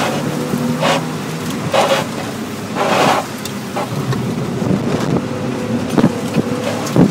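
Mazda Miata's four-cylinder engine running hard with its pitch changing, heard from inside the cabin, with bursts of tyre spray hissing off the wet pavement and a couple of sharp knocks near the end.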